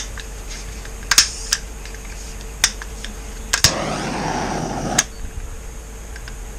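Plastic paint bottles and cups being handled on a work table: a scattering of sharp clicks and knocks, with a rough scraping noise lasting over a second near the middle.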